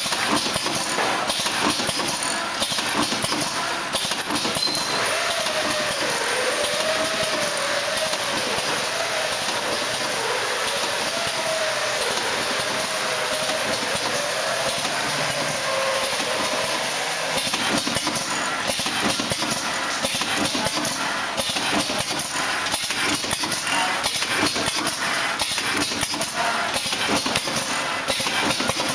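Automatic coffee stick packing machine with a volumetric cup filler running: a steady mechanical clatter and hiss with rapid clicking throughout. A wavering whine runs through the middle part.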